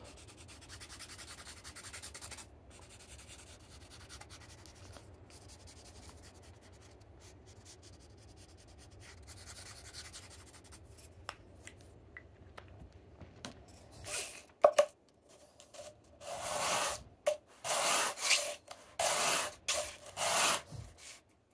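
A felt-tip marker scribbling faintly over the face of a small wooden disc. About 14 seconds in, the disc is rubbed back and forth on a sheet of sandpaper, several strokes about a second apart, flattening the base of a hand-carved wooden goblet. The sandpaper takes the ink off the high spots first.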